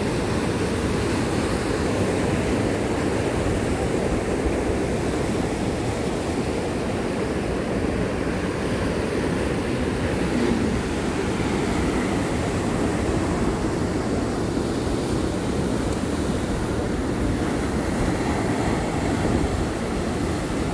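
Ocean surf breaking against the shore, a steady rush of wave noise.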